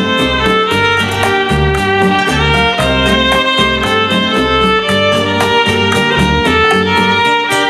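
Electric violin playing a bowed melody over a backing track with bass notes and a steady beat.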